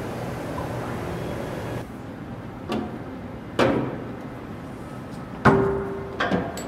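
A steady machine hum drops away about two seconds in. Then come four knocks and clunks of metal as the stainless-steel lid and tray of an EOS powder 3D-printing station are handled. The loudest clunk, about a second before the end, rings briefly.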